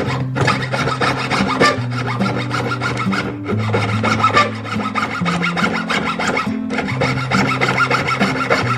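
Hand tool rasping on silver in rapid back-and-forth strokes, in three runs with short pauses between them, over background music with a steady bass line.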